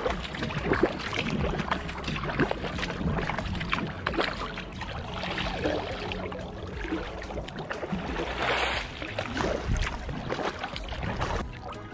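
Kober Passage kayak paddle stroking through flat water, the blades dipping and pulling on alternate sides in a steady rhythm of splashes, with one louder splash late on. The thin blade edge cuts into the water easily, with little noise.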